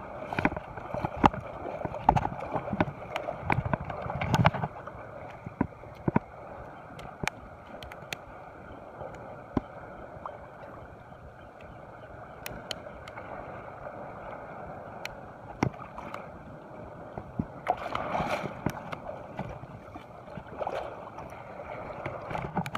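Sea water washing and sloshing along the shore, with scattered small clicks and knocks from a spinning reel being cranked and handled. The wash swells louder in the first few seconds and again near the end.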